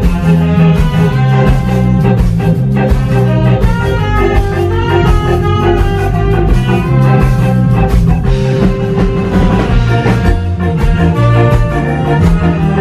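Live band playing reggae, with a heavy bass line, drum kit and guitar, and saxophone and trumpet playing horn lines.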